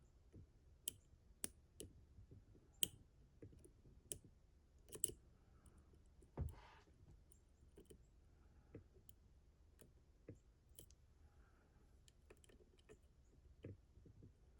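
Faint, irregular small metallic clicks of lock picks working the pins and rotors inside a Mottura CP6 dimple lock, as the picker pushes and pulls on the rotor nubs. There is a duller knock about six and a half seconds in.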